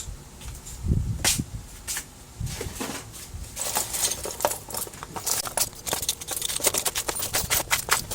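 Plastic printer parts being handled: a few knocks, then a quick run of light clicks and rattles from about three and a half seconds in.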